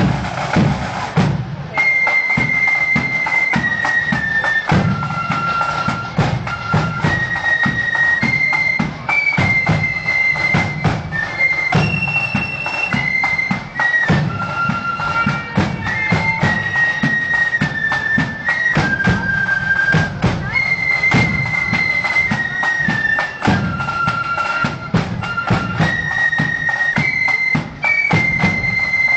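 Marching flute band playing a tune in unison on flutes over a steady beat of snare and bass drums. The flutes come in about two seconds in, after a few drum strokes alone.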